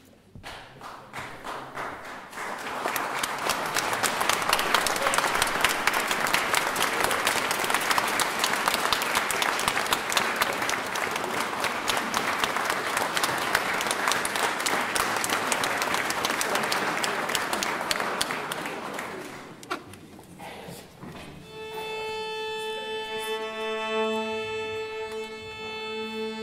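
Audience applauding: scattered claps build into steady, dense applause that dies away after about twenty seconds. Then a string chamber orchestra comes in on long held bowed notes.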